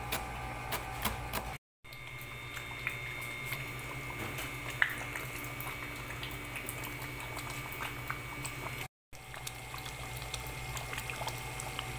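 Meat sauce simmering in a pot, with many small bubbling pops over a steady low hum. In the first second and a half, a knife chopping herbs on a cutting board, then an abrupt cut.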